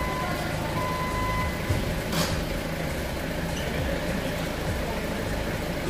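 Steady hum of factory machinery running, with two long electronic beeps in the first second and a half and a short hiss about two seconds in.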